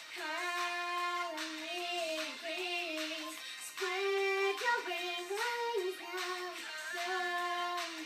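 A young girl singing a pop song into a toy microphone, with music playing along. Her notes are mostly held, sliding up and down between pitches.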